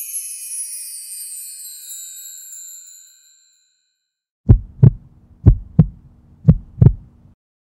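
A sparkling, tinkling magic shimmer effect that slides slightly down in pitch and fades out about three seconds in. After a brief pause a heartbeat sound effect follows: three low double thumps about a second apart over a faint low hum.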